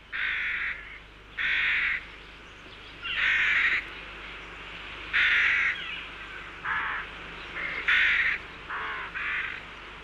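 Rooks cawing at their nests: about nine harsh caws, singly and in quick pairs, spaced unevenly.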